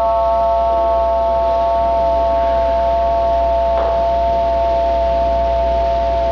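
A chord of several steady, unwavering electronic tones held over a low hum; the two highest tones fade out about two seconds in, and there is a short crackle a little before four seconds in.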